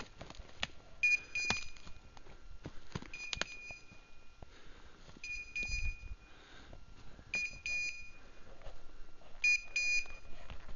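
Electronic beeper collar on a pointing dog, sounding a pair of short high beeps about every two seconds, the repeating signal that the dog is standing on point. Twigs snapping and dry leaves rustling underfoot between the beeps.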